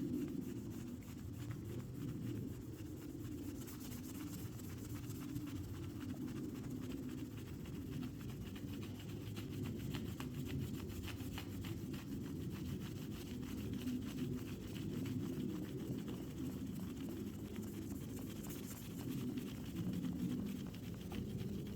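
A towel rubbed by hand over an aluminium surface, wiping off dried polish haze: a low, steady back-and-forth rubbing.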